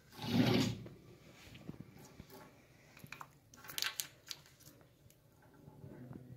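A cat batting a small battery around a shelf: scattered light clicks and short scrapes as the battery is pawed and rolls, with a louder rustling scrape in the first second.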